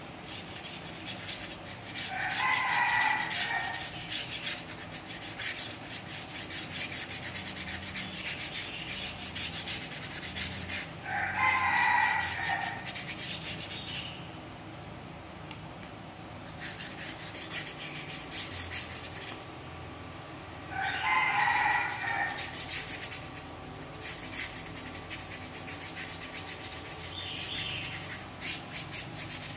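A paintbrush rubbing in strokes over corrugated cardboard, a soft scratchy sound. Over it a loud, drawn-out call sounds three times, about nine seconds apart, each lasting about a second and a half.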